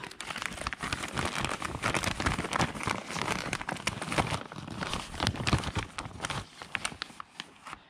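Clear plastic zip-top bag crinkling and rustling as it is handled and searched through: a dense run of crackles that thins out near the end.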